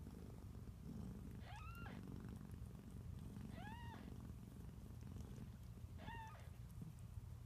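Mother cat purring steadily while her newborn kittens nurse, with three short, high mews from the kittens about two seconds apart.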